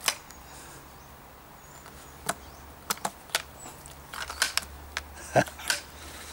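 Metal clicks and knocks of a Webley Service Mark II air rifle's interchangeable barrel being fitted back into the gun: about a dozen sharp, irregular clicks, bunched between four and six seconds in, the loudest near the end.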